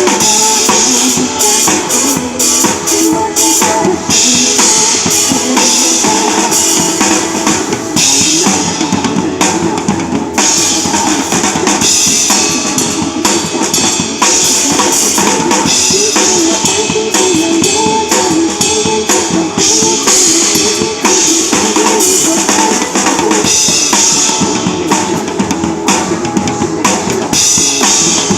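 Drum kit played live along with a song, with a dense, steady run of drum hits over the song's melody.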